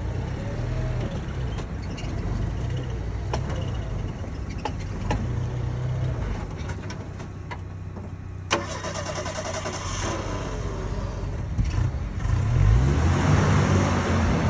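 Old flatfender Jeep engine running at low revs, with scattered light clicks and one sharp knock about halfway through. Near the end the engine revs up and gets louder.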